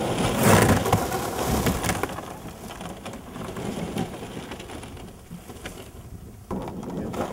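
Packed river ice floes crunching and grinding, loudest in the first two seconds, then fainter crackling with scattered cracks.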